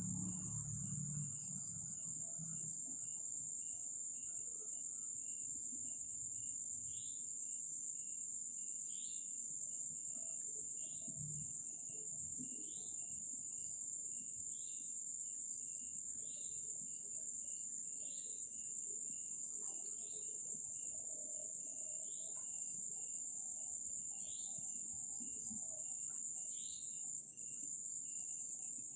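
Crickets chirring in a steady high trill, with a second, short call repeating about every two seconds from about seven seconds in.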